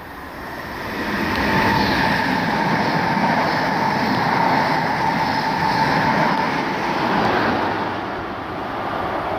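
Locomotive-hauled intercity passenger train of Mark 3 coaches running through a station: the rush of wheels on rail builds over the first second or so, stays loud with a steady whine, and eases off near the end.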